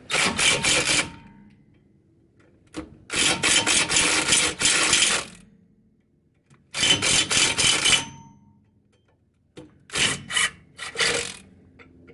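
Power driver spinning a socket on bolts threaded into a rear brake drum, so the bolts press against the hub and push the drum off. It runs in four bursts of one to two seconds with pauses between, the last broken into short pulses.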